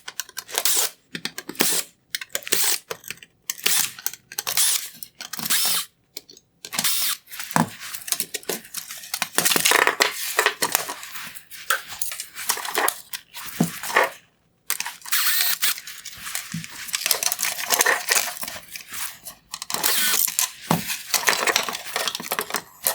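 Screwdriver backing T10 Torx screws out of a headlight's plastic LED unit, with plastic parts handled, in many short bursts with brief gaps.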